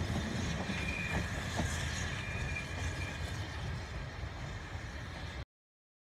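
Narrow-gauge steam train on the Ffestiniog Railway running along the line with a low steady rumble. It cuts off abruptly about five and a half seconds in.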